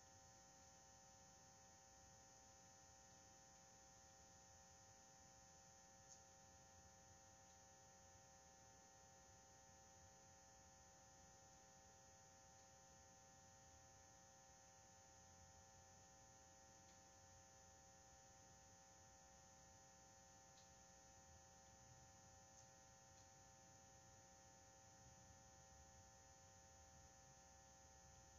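Near silence: a faint steady electrical hum with a high hiss, and a couple of very faint ticks. No drums are being played.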